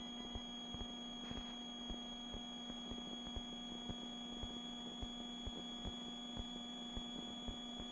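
Helicopter cabin noise in flight, heard through the headset intercom: a steady hum of several fixed tones with faint low thumps repeating a few times a second.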